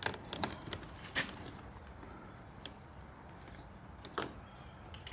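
A few scattered light clicks and taps from hands handling motorcycle handlebar wiring and parts while routing cables, over a faint steady background hum.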